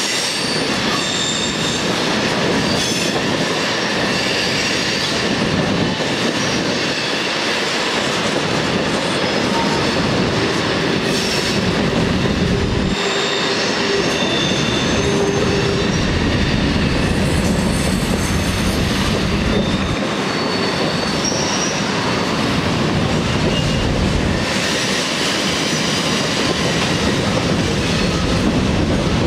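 Freight cars of two trains rolling past each other: a steady rumble and rattle of wheels on rail, with thin high-pitched wheel squeal coming and going as the cars take the curves and switches.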